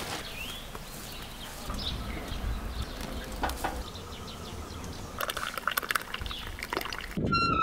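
Outdoor background with birds chirping here and there, and a few sharp light clicks about five to six seconds in, like a spoon against glassware.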